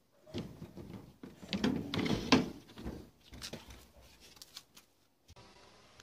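Tumble dryer's top panel being slid back and lifted off the cabinet: a run of knocks and scraping, loudest about two seconds in, then fainter handling.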